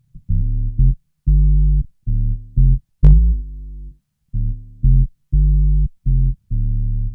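Electric bass played through a Boss OC-2 Octave pedal set to only its two-octaves-down voice (Oct 2 full, direct and Oct 1 off): a riff of short, very low notes, each cutting off into silence before the next. A sharper pluck attack comes about three seconds in.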